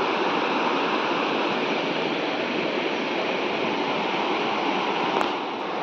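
Dikhu river water flowing in a steady, even rush.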